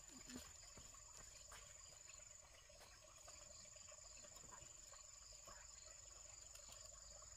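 A faint, steady, high-pitched insect trill, with a few soft clicks.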